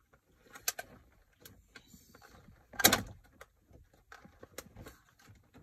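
Plastic clicks, knocks and light rattling as a 10-inch Android head-unit screen is handled and fitted into a car dashboard's radio opening, with one sharp, louder knock about three seconds in and a smaller one under a second in.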